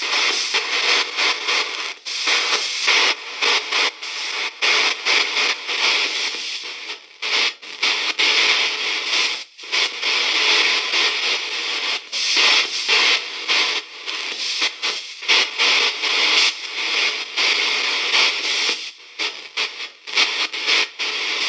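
VBE KC-Ghostbox ghost box app sweeping through its audio banks: a choppy run of radio-style static, chopped by brief dropouts several times a second.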